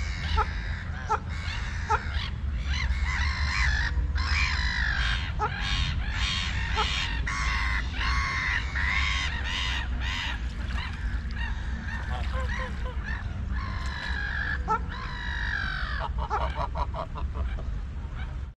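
Geese honking and calling over and over, many overlapping calls, with short sharp pips among them, over a steady low rumble.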